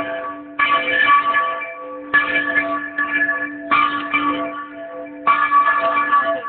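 Church bells rung by hand in a repique. There are four loud clanging strikes, about one every second and a half, and a bell's low hum rings on between them.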